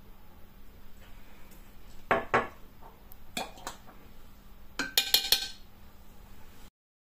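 A metal tablespoon knocking and clinking against a Thermomix's stainless steel mixing bowl: a few separate taps, then a quick run of ringing clinks about five seconds in.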